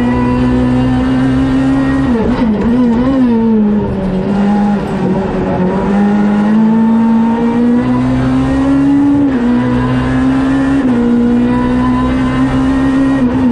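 Renault Clio R3C rally car's naturally aspirated 2.0-litre four-cylinder engine, heard from inside the cabin, running hard at high revs under full throttle. About two seconds in the revs waver and fall as it lifts and downshifts through a corner. It then pulls up again and shifts up sharply near the nine-second mark.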